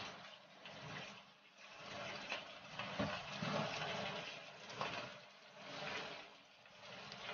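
Fish and ginger slices frying in hot oil in a nonstick pan: a crackling sizzle that rises and falls in level, with a brief knock about three seconds in.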